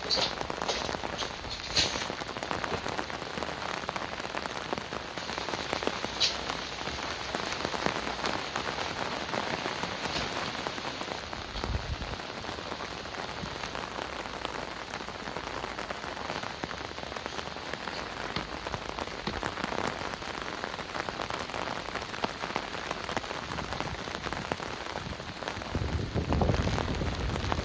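Heavy rain falling steadily on a surface, with occasional sharper, louder drops, and a low rumble near the end.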